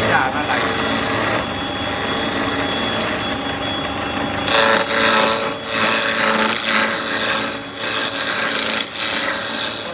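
CNC router cutting a wooden sofa leg: a steady high spindle whine under a rasping cutting noise that swells and fades as the bit moves through the wood, loudest about halfway through.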